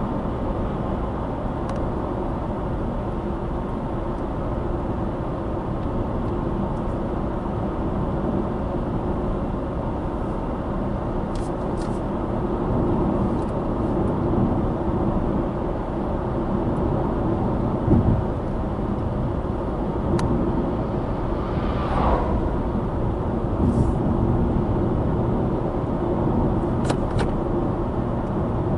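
Subaru Impreza Sport 1.6i-L driving downhill: steady road and engine noise, mostly low tyre rumble. A single thump comes about two-thirds of the way through, and a brief higher-pitched sound follows a few seconds later.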